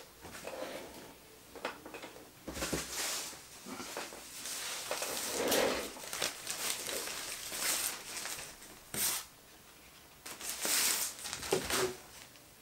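Irregular rustling and scuffing of nylon pack-cloth pieces as a cat walks over and noses at them on a table, with a few sharp clicks.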